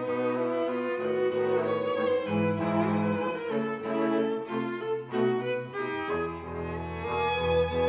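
String quartet music: cello and violins playing sustained, bowed lines, with a low cello note entering about six seconds in and holding.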